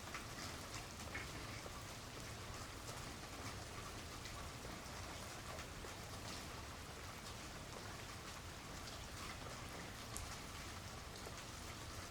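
Light rain falling in a backyard: a steady patter of scattered drops ticking on surfaces, over a low rumble.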